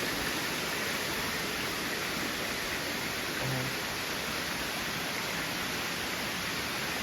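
Steady rush of waterfall water, an even hiss that does not change.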